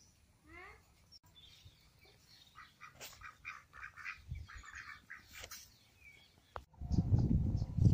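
Domestic white ducks quacking in a quick run of short, nasal calls. About a second before the end a loud low rumbling noise cuts in suddenly and covers them.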